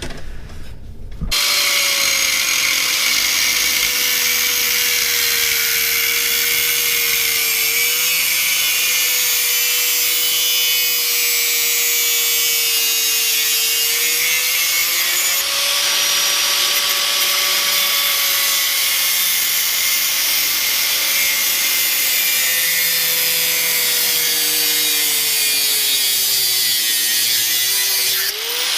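Angle grinder cutting into a steel exhaust pipe: a steady motor whine over a loud grinding hiss. It starts about a second in, its pitch sags now and then under load, and it dips briefly near the end.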